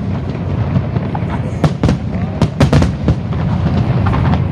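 Aerial fireworks shells bursting: a quick cluster of about five sharp bangs between one and a half and three seconds in, over a steady low rumble.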